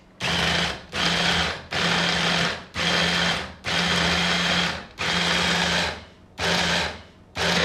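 Small electric hand blender with a mini chopper bowl, its motor run in short pulses, about eight bursts of under a second each with brief pauses, as it chops raw chicken breast, bread and spices into a paste.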